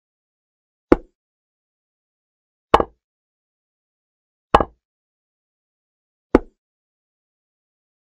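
Chess move sound effects from a digital board: a short, sharp wooden-sounding clack about every two seconds, four in all, each marking a piece being placed. The second and third are doubled.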